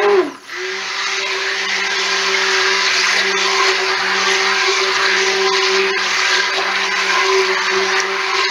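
Handheld stick (immersion) blender running in a plastic bucket of raw cold-process soap batter, a steady motor hum. Just after the start it cuts out for a moment, its pitch falling, then spins back up and runs on steadily, mixing the oils and lye water toward emulsification.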